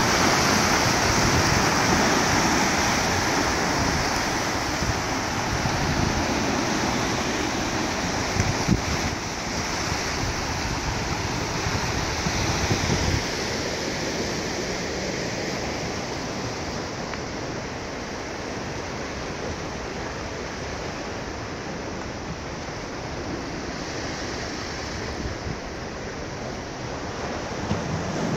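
Sea surf washing and breaking against rocks, a steady rushing, with wind rumbling on the microphone. The rumble drops away about halfway through and the surf grows fainter.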